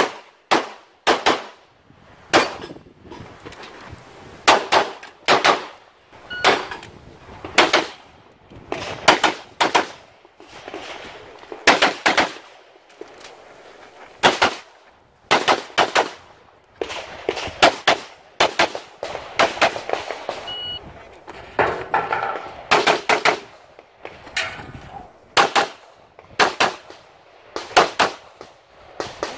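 CZ Shadow 2 9mm pistol fired rapidly through an IPSC stage. The shots come mostly in quick pairs, with short gaps between the pairs.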